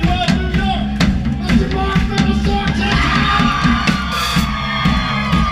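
Live rock band playing at full volume, heard from right behind the drum kit: steady drum and cymbal hits under electric guitars, with a long held note coming in about halfway through.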